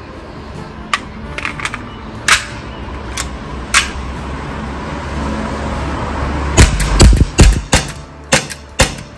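Sharp mechanical clicks and snaps from an Umarex T4E Glock 17 Gen5 CO2 pistol being worked in the hand: a few scattered clicks, then a quick run of about a dozen louder snaps in the second half.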